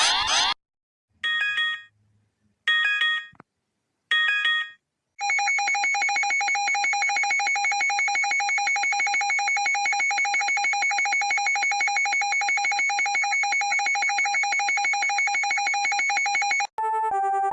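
Emergency alert system alarm: three short electronic tone bursts, then a long, rapidly pulsing alarm tone like a ringing telephone bell that cuts off near the end.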